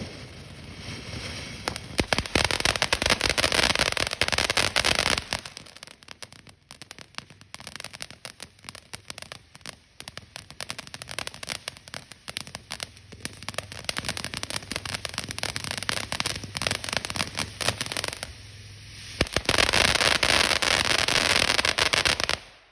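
Fireworks going off: a few seconds of dense, rapid crackling and popping, thinning to scattered crackles, then another dense burst of crackling near the end that cuts off suddenly.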